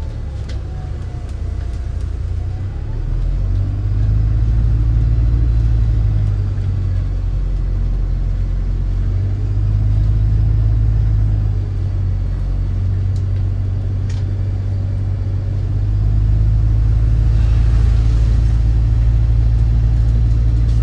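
MAZ-203 city bus under way, heard from on board: a steady low engine and road rumble that swells about three seconds in and again near the end. A short hiss comes near the end, and there is a single click.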